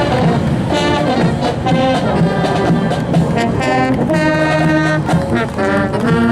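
A brass band playing, with trumpets and trombones sounding a series of short held chords.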